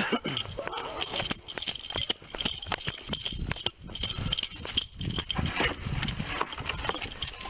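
Hurried footsteps and jostling handling noise on a police body-worn camera as the officer wearing it runs: a dense, irregular run of knocks and scuffs.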